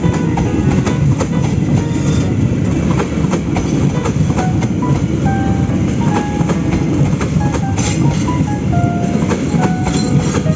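Train running along the track: a steady, loud rumble with many rail clicks throughout.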